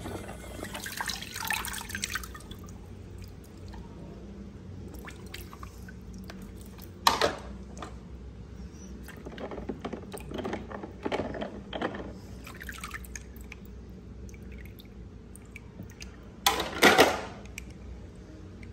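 Water splashing and dripping in a plastic tub as a hand stirs it and lifts small die-cast toy cars out, with two louder splashes, about seven seconds in and near the end.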